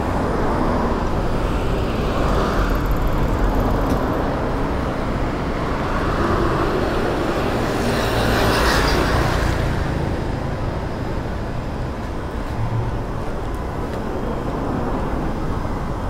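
Road traffic running along a city street, a steady rumble with one vehicle passing close about eight to nine seconds in.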